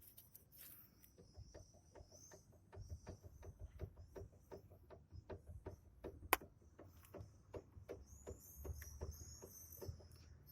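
Brake caliper guide pins of a 2006 Nissan Note knocking: a run of irregular light knocks, several a second, with one sharper knock about six seconds in. The knock is the sign of worn or loose caliper guide pins. Faint bird chirps can be heard near the end.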